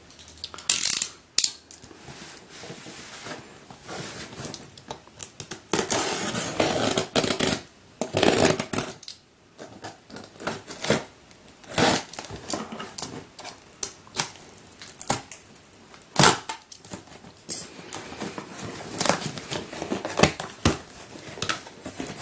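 Cardboard shipping box being opened by hand: packing tape tearing, flaps scraping and being pulled open, with irregular knocks and clicks of cardboard being handled.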